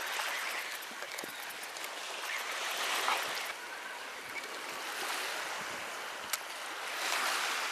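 Small waves washing over a pebble and rock shore, swelling and easing about every two seconds, with one sharp click near the end.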